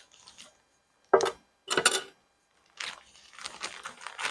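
Three short knocks or clacks, then rustling that builds near the end as a bag of light brown sugar is handled and opened.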